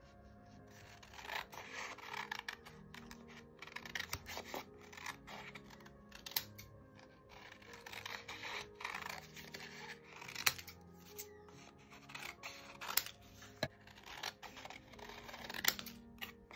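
Scissors cutting watercolour paper: sharp snips with crisp paper rustling as the sheet is turned, over background music.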